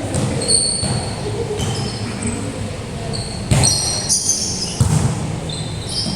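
Basketball shoes squeaking repeatedly on a gym floor, with several ball bounces or thuds in the middle, over the echoing murmur of players and onlookers.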